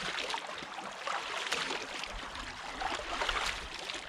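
Water splashing as handfuls are scooped from a shallow flowing canal and thrown onto the face, over the steady rush of the flowing water.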